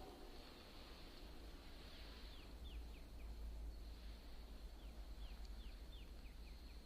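A small songbird calling faintly in two runs of short, high, downslurred notes, about four together some two seconds in and another six or seven near the end, over a low steady outdoor rumble.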